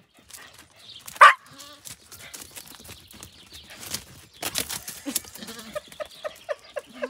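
A dog and Jacob sheep running past on grass, with rustling and footfalls. One loud animal call falling in pitch comes about a second in, and a quick run of short calls near the end.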